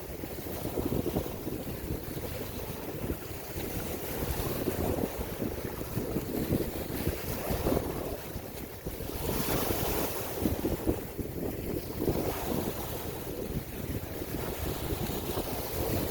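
Gusty wind buffeting the microphone, a continuous uneven low rumble with a brief brighter rush about nine to ten seconds in.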